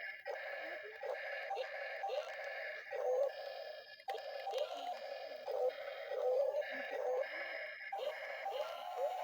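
Background music: an electronic tune with a steady droning tone and short rising chirps repeating through it.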